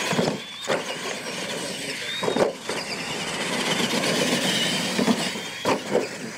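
Retro electric R/C monster trucks racing on dirt: a wavering high whine from their motors and gearing over tyre noise, with a few sharp knocks as they bounce over the track.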